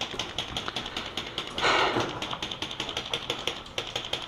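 Airsoft guns firing: a rapid, irregular run of sharp clicking shots, with a short burst of louder noise just under two seconds in.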